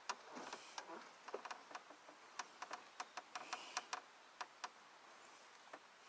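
A quick irregular run of sharp, light clicks and ticks, with a brief rustle near the start and one last click near the end.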